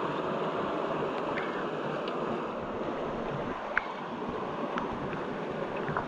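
Steady rush of a waterfall splashing into its pool, with a few sharp drips or splashes on top, the loudest about halfway through.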